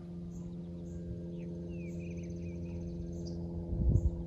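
A steady low hum made of several even tones, with birds chirping over it and a dull low thump near the end.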